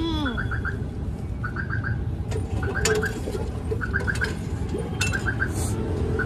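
Roadside ambience: a steady low traffic rumble, with a short high four-note chirp repeating evenly about once a second.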